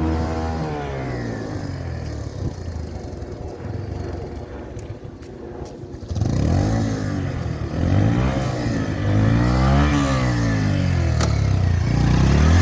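Bajaj Pulsar 150 motorcycle's single-cylinder engine revving, its pitch rising and falling several times. It drops quieter for a few seconds in the middle, then comes back louder with repeated rises and falls about halfway through.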